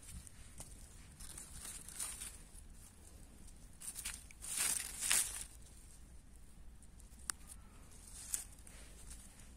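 Leafy wild greens being picked by hand: rustling and tearing of leaves and stems, loudest in a couple of swishes about four to five seconds in, with two short sharp clicks later.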